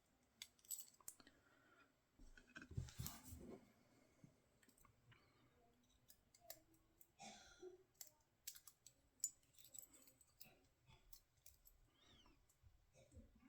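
Near silence broken by scattered faint clicks and taps of a padlock and its small metal parts being handled, with a short rustle about three seconds in.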